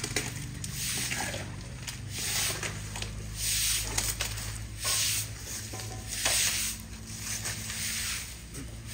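Broom sweeping a wet concrete floor: a scraping swish about once a second. A steady low hum runs underneath.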